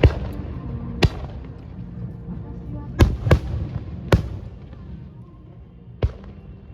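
Fireworks shells bursting overhead: six sharp bangs spread unevenly, two of them close together about three seconds in.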